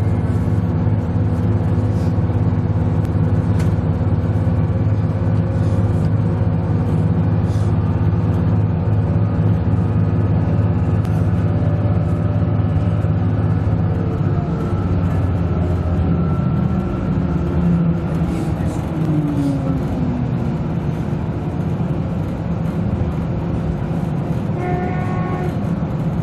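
DB class 646 (Stadler GTW) diesel railcar heard from inside the passenger cabin while under way: a steady diesel engine drone with wheels running on the rails. About fourteen seconds in the engine note drops and changes, a short gliding tone follows a few seconds later, and a brief high tone sounds near the end.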